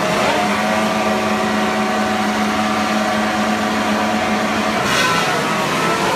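A grid of Formula 1 cars' 1.6-litre turbocharged V6 engines held at steady high revs for the start. About five seconds in the sound breaks and the pitch rises as the cars begin to pull away.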